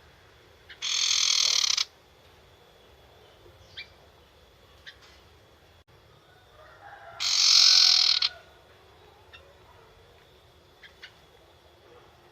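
Young barn owl screeching: two harsh, hissing screeches about a second long each, one about a second in and the other past the middle, with a few faint clicks between.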